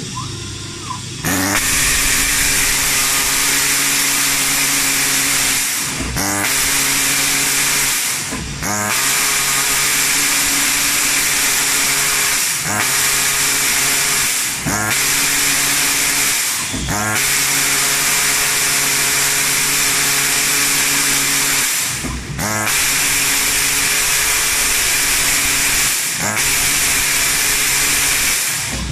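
A CNC plasma cutting machine's engraving head marks a steel sheet with a steady, loud hiss and a low machine hum. The sound starts about a second in and stops briefly about six times, each time with a short sliding-pitch whine as the head moves between strokes.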